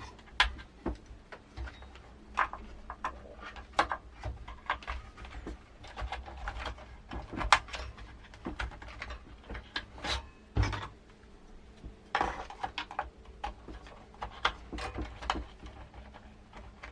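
Irregular clicks, taps and light knocks of small hard objects being handled and set down, a few a second, with a heavier thud about two-thirds of the way through.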